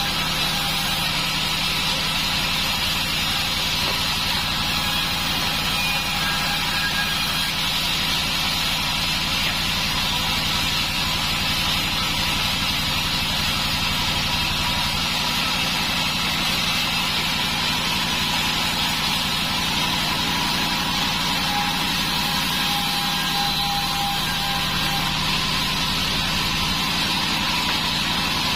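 Sawmill band saw running steadily: a constant engine-like drone with a hiss above it and a few faint brief tones.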